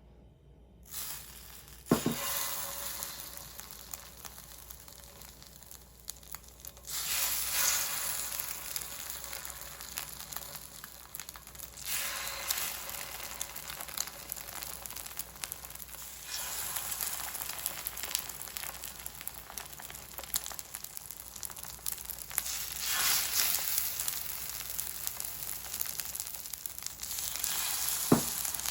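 Food frying in a pan, sizzling throughout and swelling louder several times, with a sharp knock about two seconds in and another near the end.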